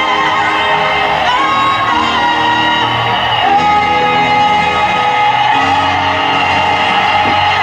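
Music with a singing voice, held notes over steady accompaniment, loud and even throughout; no firework bangs stand out.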